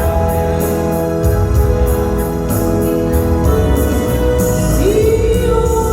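A song performed live: a singer over electronic organ-style keyboard and drums. About five seconds in, a note slides up and is held.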